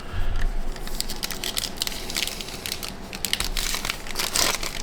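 Crinkling and rustling of a foil trading-card pack wrapper and cards being handled: a dense run of small crackles, busiest near the end.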